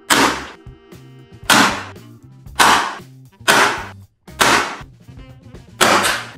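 Ozito electric staple gun firing six staples through vinyl upholstery, one sharp snap roughly every second. Background music plays underneath.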